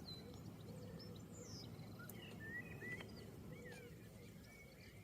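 Small birds chirping faintly with short, quick calls, some gliding up and down in pitch, over a steady low background rumble.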